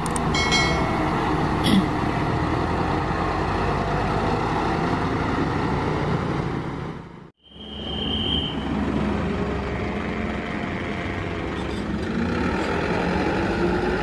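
Diesel truck engines running slowly under load on a steep climb, with road traffic noise. The sound drops out briefly near the middle, and just after that a short high steady tone sounds for under a second.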